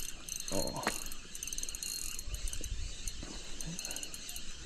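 Small size-1000 spinning reel clicking in quick, irregular runs of high ticks.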